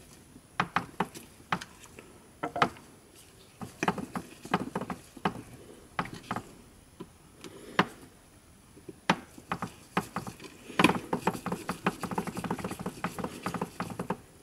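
Scattered sharp clicks and taps of hard plastic parts as the JBL Go 2 speaker's inner frame and housing are handled and pressed together, with a dense run of rapid clicking and rattling in the last few seconds.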